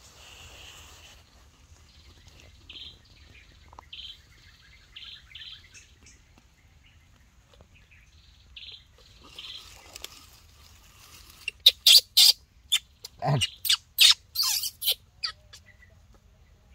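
Baby monkey squeaking: short faint high squeaks over the first ten seconds, then a quick run of louder, sharp shrill cries a few seconds before the end.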